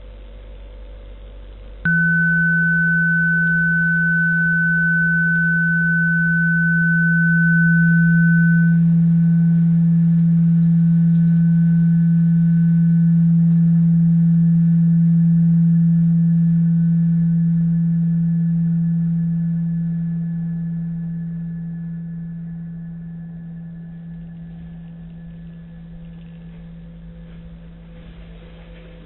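A steady electronic tone effect: a loud low drone cuts in abruptly about two seconds in with a thin high tone over it. The high tone fades out by the middle, and the drone slowly dies away toward the end.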